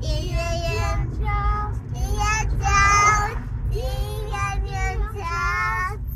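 A young girl singing a wordless tune in a high voice, holding notes for about half a second to a second each, over the low, steady rumble of the car cabin.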